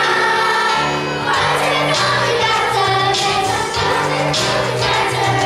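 A chorus of children singing a song together over instrumental accompaniment with a moving bass line.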